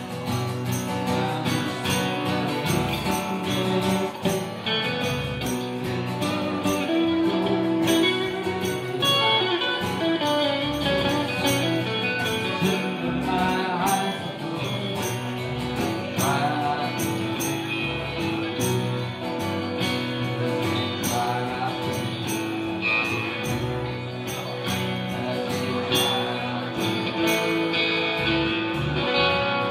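Live band playing an instrumental stretch of a song on electric guitar, bass guitar and acoustic guitar, with a steady beat of high percussive ticks.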